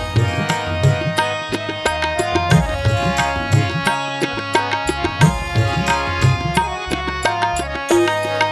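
Devotional music: a steady drum rhythm of low strokes under held melodic notes.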